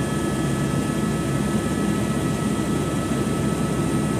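Helicopter in flight, heard from inside the cabin: a steady drone from the engine and rotor, with a few thin, steady high tones over it.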